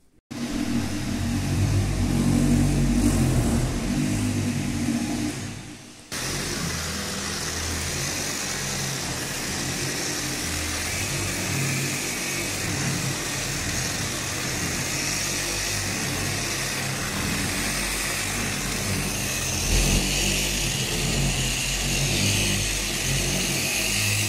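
Electric rotary polisher running with a polishing pad on a glass railing panel, a steady motor whine with the pad scrubbing compound across the glass. There is a short break about six seconds in before it runs steadily again.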